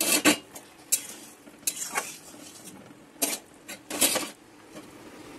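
A metal utensil clinking and knocking against a metal cooking pan, about eight strikes, with a cluster near the start and another near the end, over the faint bubbling of a dal-and-potato curry simmering.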